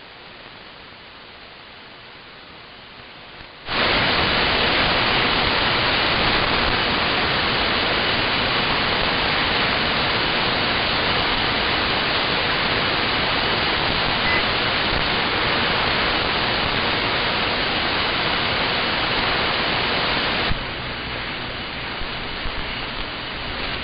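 Shortwave static, heard through a web SDR receiver in AM mode on the 40-metre band. A low, even hiss jumps to loud band noise about four seconds in, as the calling station's carrier drops and the receiver's automatic gain turns up, then eases to a softer hiss a few seconds before the end.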